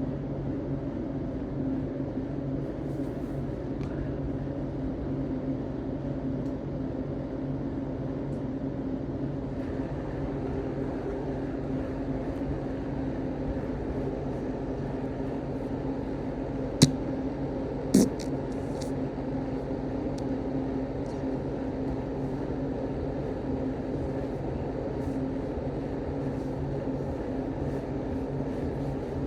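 A steady low mechanical hum, with two sharp clicks a little over a second apart about halfway in.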